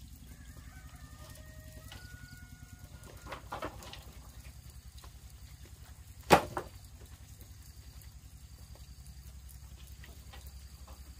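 A small engine running steadily with a rapid low throb. A few short high chirps sound in the first three seconds, and a single sharp knock comes about six seconds in.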